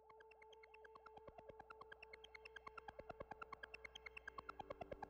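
Faint electronic synthesizer sound: a held tone under quick pulsing ticks, several a second, that grow steadily louder.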